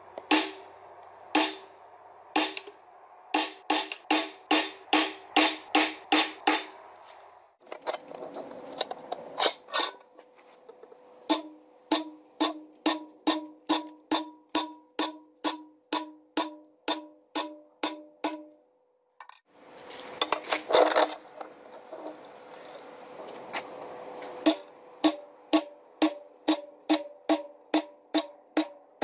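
Hand hammer striking hot steel on an anvil, in runs of about three blows a second, each blow ringing out clearly. Short spells of rushing noise fall between the runs.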